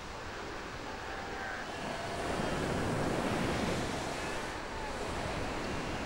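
Ocean surf breaking on a sandy beach: a steady wash of waves that swells about two seconds in and eases again after about four.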